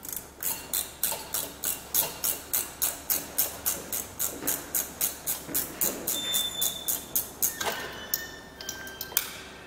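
Ratchet clicking steadily, about three to four clicks a second, as the float bowl nut of a small Tecumseh engine's carburetor is undone. Near the end there are a few scrapes and short squeaks as the bowl comes free.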